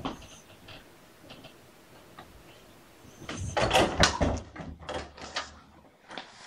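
A kitten rubbing and bumping against the camera, its fur brushing over the microphone. A few faint clicks come first, then from about three seconds in a dense run of loud rustles and knocks.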